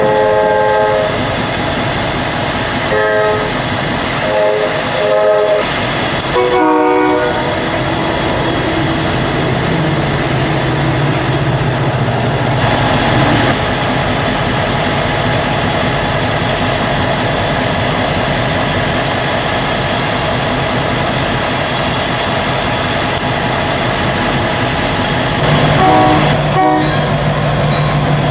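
Union Pacific diesel freight locomotives: the horn sounds a series of short blasts, then the diesel engines run steadily. Near the end the engines grow louder and the horn sounds briefly once more.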